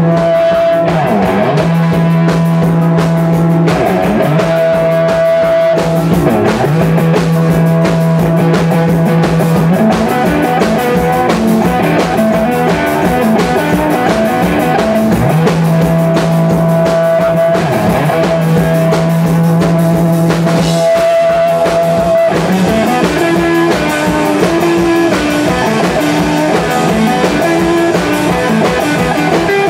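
Live rock band playing: electric guitars over a drum kit, with long held guitar notes. In the last several seconds a melodic line of notes steps up and down.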